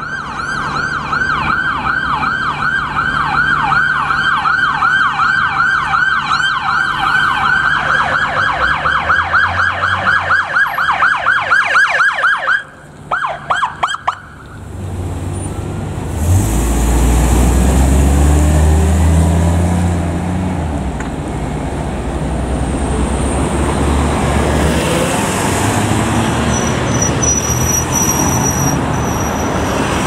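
Ambulance electronic siren on a rapid yelp, switching about a quarter of the way in to a deeper, wider-sweeping yelp. Before halfway it cuts off after a few short chirps. Vehicle engine rumble and road traffic noise follow as the ambulance pulls away.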